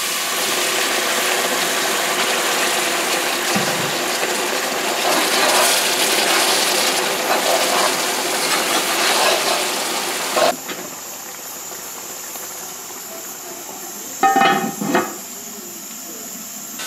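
Water poured into a hot pot of mango curry, hissing and sizzling in a loud steady rush for about ten seconds while a ladle stirs it. A sharp knock comes about ten seconds in, then an aluminium pot lid clatters down twice near the end over a fainter steady hiss.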